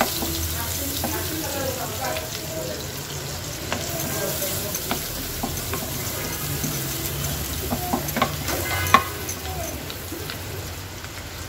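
Chopped garlic sizzling in butter and olive oil in a frying pan as it browns, stirred with a utensil that scrapes and taps against the pan now and then. The loudest tap comes about nine seconds in.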